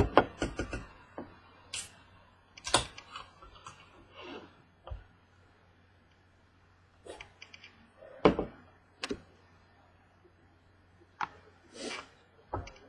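Scattered light clicks and knocks, a quick run of them at the start and then single ones every few seconds, with a few short soft rubbing sounds, typical of things being handled on a tabletop. A faint steady low hum runs underneath.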